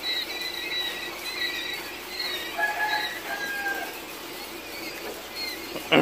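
A brood of week-old quail chicks peeping, many short high calls overlapping and repeating without pause.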